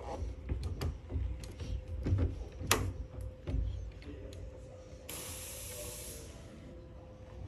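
Irregular clicks and knocks with low thuds, including one sharp click near the middle, then a steady hiss lasting about a second.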